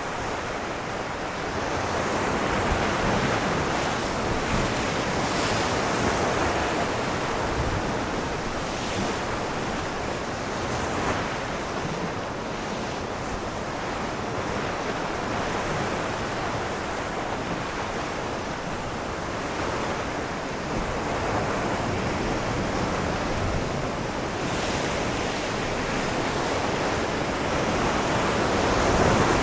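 Ocean waves breaking on rocks, a continuous wash of surf that swells and ebbs every several seconds, with some wind on the microphone.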